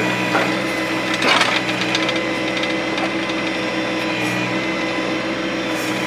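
John Deere 1025R compact tractor's three-cylinder diesel running at working speed with a steady hydraulic whine as its 260B backhoe digs in hard, dry soil. A brief scrape of the bucket through soil and stones comes about a second and a half in.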